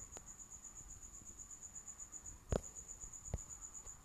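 A cricket chirping steadily, a faint high pulsing tone. Two short faint clicks come a little past the middle.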